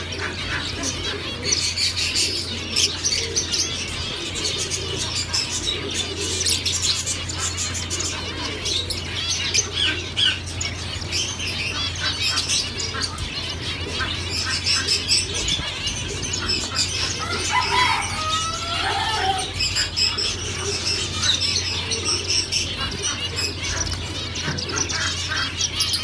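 A flock of caged zebra finches chirping constantly with many short calls while wings flutter as birds fly about the cage. A lower, curving call stands out about two-thirds of the way through.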